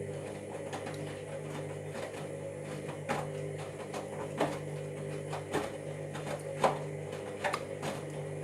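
Washing machine motor running with a steady hum as the drum turns, with irregular sharp clicks and knocks about once a second: the sign of the drum and motor fault.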